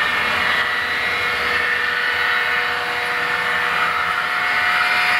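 HO scale model train running: a steady whirring hiss of wheels on the rails, with a few steady motor-whine tones over it.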